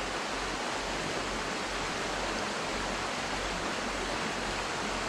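Shallow creek water rushing steadily over rocks, an even unbroken wash of noise.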